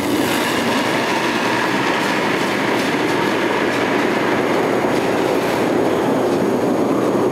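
Granite curling stone running down pebbled ice after its release, a steady rumble that starts suddenly.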